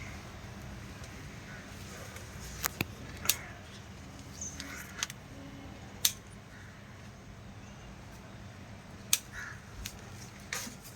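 Crows cawing faintly in the background, with a few sharp clicks scattered through; the loudest clicks come about six and nine seconds in.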